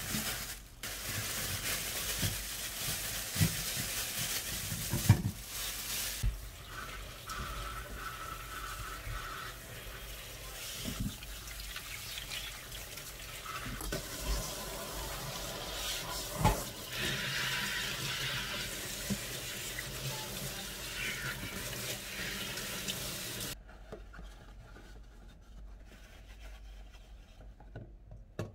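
Kitchen tap running as cherry tomatoes are rinsed in a stainless-steel colander, with a few sharp knocks from the handling. The water stops near the end, leaving quieter handling.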